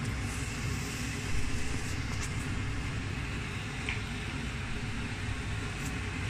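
Fish fingers frying in oil in a pan, a steady sizzling hiss, with a light knock about a second and a half in and a few faint clicks.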